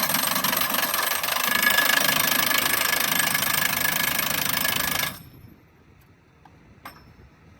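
A track-maintenance power tool running hard at a steady pitch, then cutting off abruptly about five seconds in, followed by a faint metallic click.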